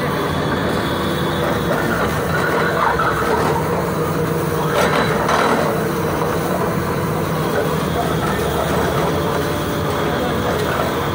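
Water-well drilling rig's engine running steadily under load as the rig drills the borehole, with a brief louder burst of noise about five seconds in.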